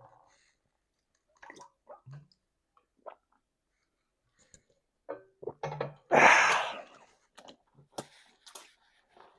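Close-miked eating of sauced chicken wings: scattered wet lip smacks and mouth clicks, with one louder, short rushing noise about six seconds in.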